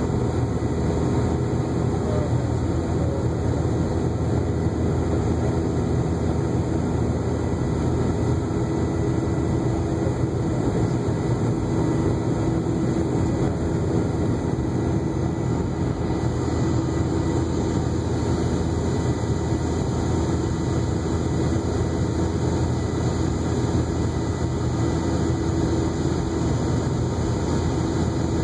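Cabin noise of a Boeing 717-200 in the climb after takeoff: a steady rush of airflow and the drone of its rear-mounted Rolls-Royce BR715 turbofans, with a faint steady high whine.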